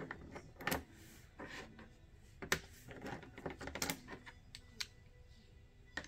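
Small 3D-printed plastic cover-minder pieces clicking and tapping on a tabletop as they are handled and paired up, in irregular light clicks.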